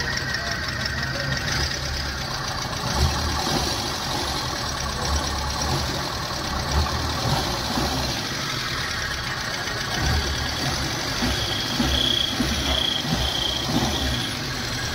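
Hyundai i10 engine running, heard from beneath the car, with a low hum that swells now and then as the accelerator is pressed. The engine is shaking on its mounts because the gearbox mount bolt is loose.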